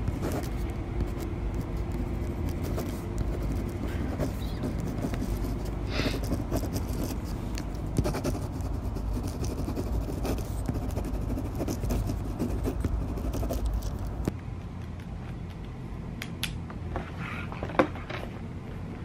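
Pen scratching on paper while writing in a planner, as a run of small scratchy ticks over a steady low rumble. The rumble eases about three-quarters of the way through, and a few sharp clicks come near the end.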